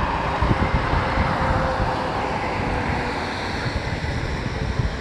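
A diesel tractor-trailer driving past, its sound fading gradually through the second half, with wind buffeting the microphone.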